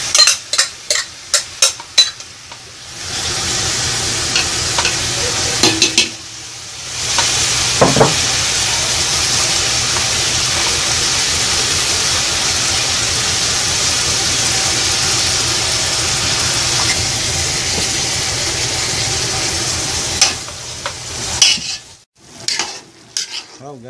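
Ground beef frying in butter in a large aluminium pot: a steady sizzling hiss. Sharp clinks and knocks at the start as the meat goes in, and again near the end as it is stirred against the pot.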